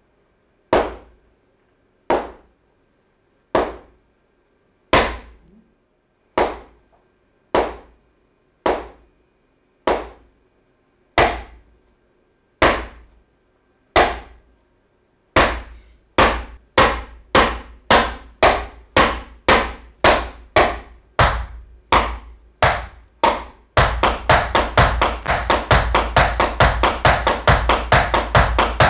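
Flamenco shoes striking a wooden floor in a footwork exercise that speeds up: single sharp strikes about every second and a half, then about two a second from about halfway, and a fast, unbroken run of strikes over the last five seconds.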